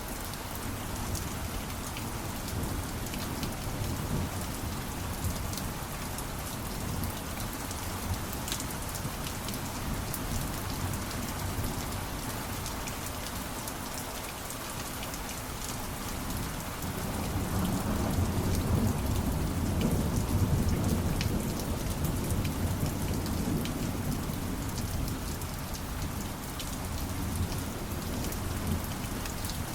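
Steady rainfall, drops pattering on a surface. In the second half a low rumble of thunder swells and fades.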